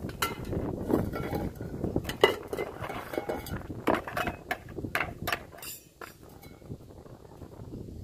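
Stainless steel tumblers and a steel ladle clinking against each other on a plastic tray as they are handled and set out, a string of sharp metallic clinks that thin out about six seconds in.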